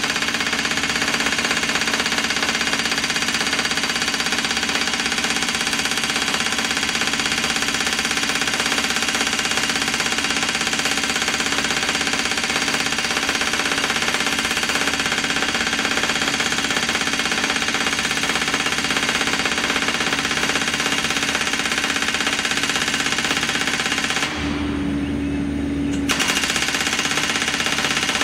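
Hydraulic post driver on a mini excavator's boom hammering rapidly and steadily on a wooden fence post, driving it into wet clay soil. Near the end the hammering stops for about two seconds, leaving the excavator's engine running, then starts again.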